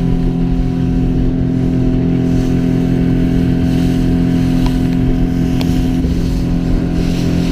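Small outboard motor running at a steady, high speed, pushing a small motorboat across choppy water, with rushing water and wind underneath.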